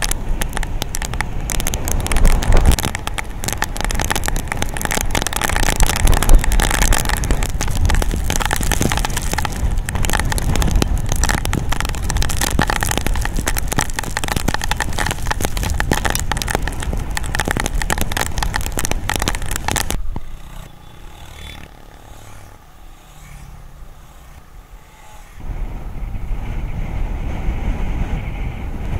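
Motor vehicle on the move along the road, a loud rushing noise full of rapid crackle. It drops to a much quieter rumble about twenty seconds in and comes back loud near the end.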